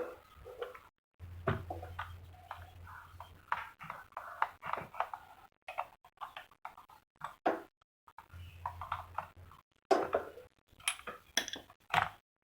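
Irregular metal-on-metal scraping and clinking from lapping a diesel engine's valve onto its seat, with a low hum in two stretches.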